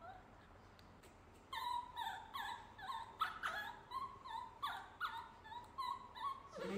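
Baby macaque crying: a rapid run of short, high, pitched cries, about two or three a second, starting about a second and a half in.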